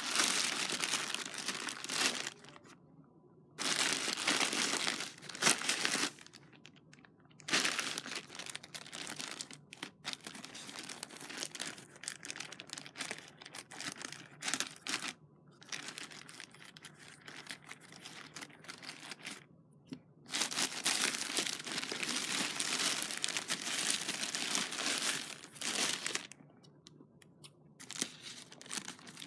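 Black plastic poly mailer bag crinkling and rustling as it is handled and cut open with scissors. The sound comes in several bouts of a few seconds each, with short pauses between them.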